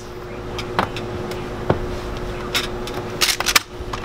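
Antique hand-operated candy chopper cutting a rope of hard candy: sharp metal clacks of the blades and hard candy pieces clattering onto the steel table. A few single clicks come first, then two quick clusters of clacks in the second half, over a steady hum.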